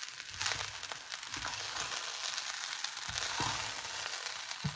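Fried rice with vegetables sizzling steadily in a frying pan, with a few knocks, likely from the wooden spatula in the pan.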